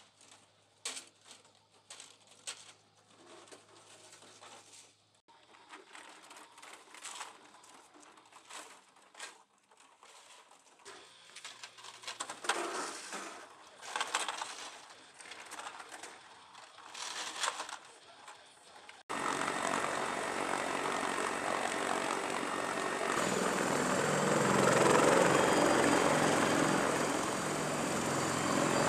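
Belts of linked machine-gun ammunition and metal ammo cans clinking and rattling as they are handled, a scatter of short metallic clicks. About two-thirds of the way through there is a sudden switch to the loud, steady running of a CH-53E Super Stallion helicopter's engines and turning rotors, which swells a little near the end.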